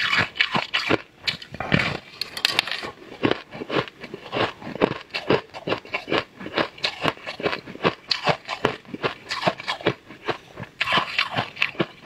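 Biting and crunching into a hard, crystal-encrusted purple sweet: a dense, uneven run of sharp cracks and crunches as the brittle crystals break between the teeth, with chewing.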